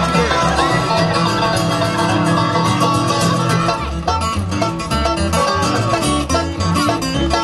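Upbeat bluegrass-style music with banjo and guitar picking over a moving bass line.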